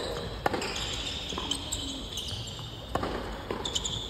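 Tennis ball struck by rackets in a doubles rally: several sharp pops, the loudest about half a second in and again near three seconds, with lighter hits between.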